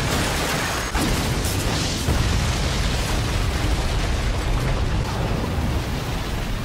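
Anime sound effect of a large blast tearing up the ground: a continuous low rumbling explosion with crashing debris, with a sharp hit about a second in.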